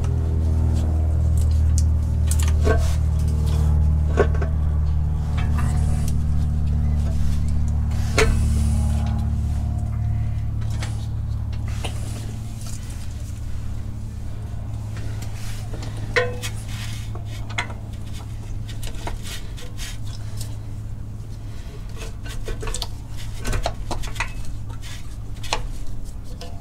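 Scattered metallic clinks and knocks as a twin-disc clutch assembly is shifted and seated onto the flywheel's alignment dowels. Under them runs a steady low hum that fades out about halfway through.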